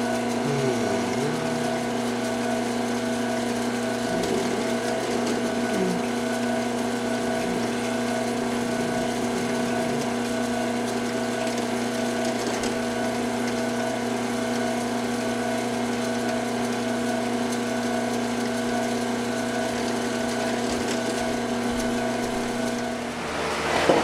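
Small drill motor running steadily while drilling holes in a circuit board, a constant hum with a few faint ticks; the hum stops near the end.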